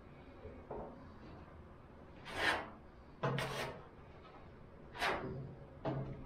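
Spreader scraping and smoothing freshly mixed body filler (Bondo), in four separate rasping strokes.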